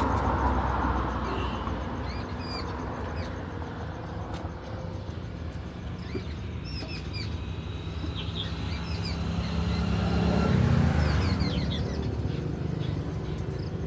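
An engine running steadily, its hum swelling about ten seconds in, with small birds chirping over it.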